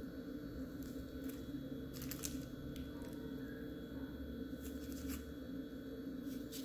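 Faint rustling and small clicks of hands handling a plastic bag of icing glue and soft marshmallow pieces over a plastic tray, with a steady low hum underneath.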